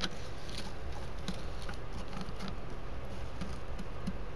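Rockford Fosgate Crescendo midrange speaker with its cone cut to shreds, all but dead: no music comes through, only a steady low hum with scattered faint clicks and crackles.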